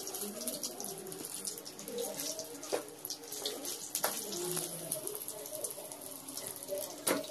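Mustard oil sizzling and crackling in a kadai as fried small eggplants are lifted out with a slotted spoon, with a few sharp clinks of the spoon against the metal pan and plate.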